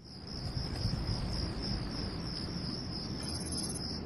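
Insects chirring steadily in a high, unbroken band, over a low rumble of background ambience. The sound fades in at the start, and a brief higher trill comes in about three seconds in.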